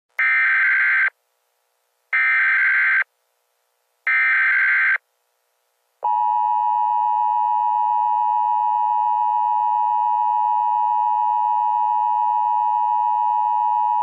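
Emergency Alert System alert opening for a flash flood warning: three short bursts of SAME header data, about a second each, followed by the steady attention tone held for about eight seconds.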